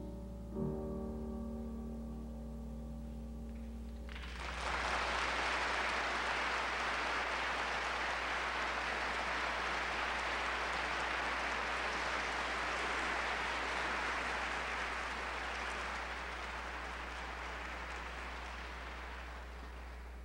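Grand piano playing a closing chord, struck about half a second in and left ringing. At about four seconds an audience breaks into steady applause, which fades away near the end.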